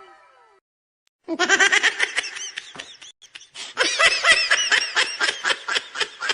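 High-pitched laughter sound effect in two bouts of quick, pulsing laughs, the second bout slowing into separate spaced-out laughs near the end.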